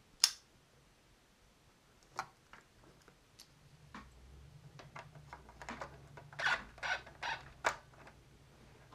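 Faint handling sounds of cables and plugs: a sharp click right at the start, a few light clicks, then a quick run of rustles and knocks near the end. A low steady hum comes in about four seconds in.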